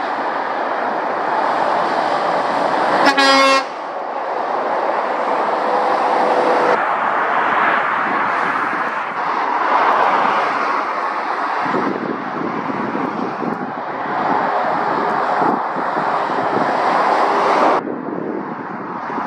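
Lorries and cars passing at speed on a dual carriageway, a steady rush of tyre and engine noise, broken by a single short horn toot about three seconds in, the loudest moment. The traffic noise changes abruptly a few times.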